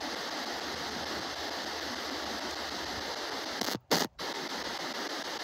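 Spirit box (radio-sweep ghost scanner) scanning through stations: a steady hiss of radio static that cuts out twice in quick succession a little before four seconds in, with a short loud burst between.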